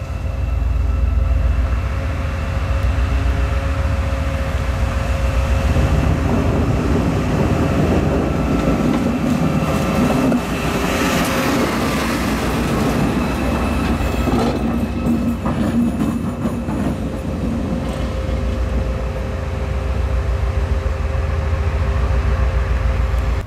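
Captrain locomotive passing slowly close by, its machinery humming steadily with a few held tones and its wheels clacking over the rails. It is loudest about halfway through as it goes past, then rattles and fades a little as it moves away.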